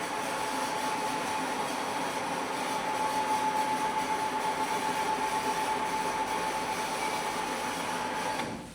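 A machine running steadily with a constant mid-pitched whine over a noisy hiss, cutting off abruptly just before the end.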